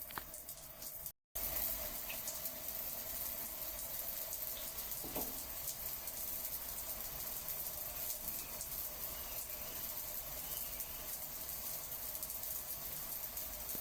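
Steady rush of flowing water, a continuous hiss with no break. It cuts out completely for a moment about a second in, then resumes.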